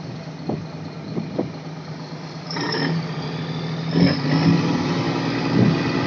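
Fishing boat's engine running steadily, with a few short knocks. It grows louder about two and a half seconds in.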